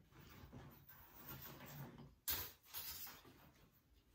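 Faint handling noises of a small tool on a wooden workbench, with one sharp knock a little over two seconds in and a softer one just after.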